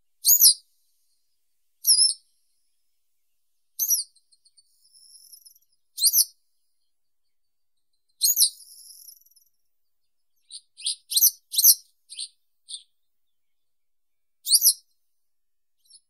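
Western yellow wagtail (Motacilla flava) calling: short, sharp, high notes about every two seconds, then a quick run of shorter notes about ten seconds in.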